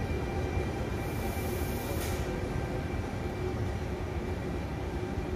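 Trenitalia E.464 electric locomotive running with a steady electrical hum made of several held tones over a low rumble. A brief hiss rises about a second in and stops about a second later.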